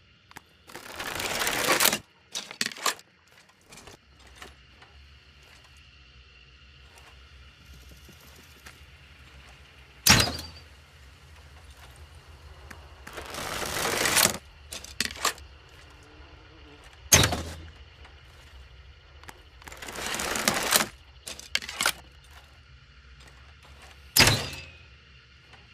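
Crossbow being worked and shot three times, about seven seconds apart: each shot is a sharp snap. Between shots comes a longer rasping noise that grows louder and stops abruptly, followed by a couple of small clicks.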